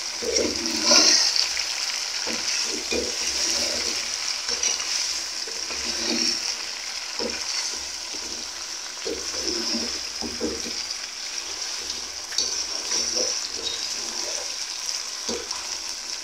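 Chicken pieces being browned in hot oil with fried onions and spices, sizzling steadily, with the irregular scrape and knock of a spoon stirring them around the pot.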